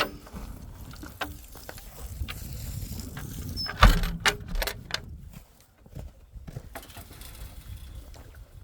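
Scattered clicks and knocks over a low rumble, with a short cluster of louder knocks and clatter about four seconds in, the loudest a single bang.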